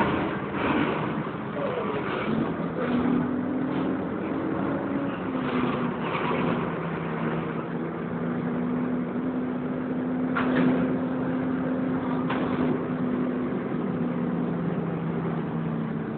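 Wright Renown single-decker bus on a Volvo B10BLE chassis heard from inside while under way: a steady engine drone that holds one pitch for several seconds and then steps to another, with a couple of sharp knocks or rattles near the middle.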